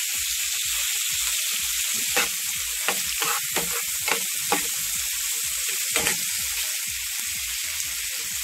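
Sliced bell peppers, onion, tomato and scallion sizzling steadily in a frying pan as they sauté. A metal spoon stirs them, clacking and scraping against the pan several times between about two and six seconds in.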